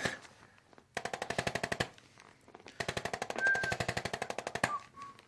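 Handheld chiropractic adjusting instrument firing rapid, evenly spaced taps against the patient's hip and glute area, in two bursts: a short one about a second in, then a longer one lasting about two seconds.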